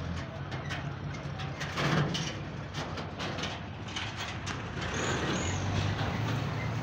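Truck engine idling with a steady low hum, together with scattered clicks and a louder knock about two seconds in.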